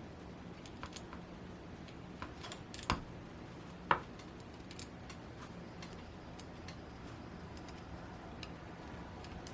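Faint clicks and taps of a model glow engine and its parts being handled on a workbench, with two sharper knocks about three and four seconds in.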